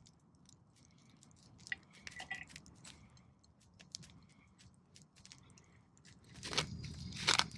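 Faint crackling and small clicks, then in the last second or so a wooden pestle begins crunching and grinding in a small wooden mortar, two loud strokes.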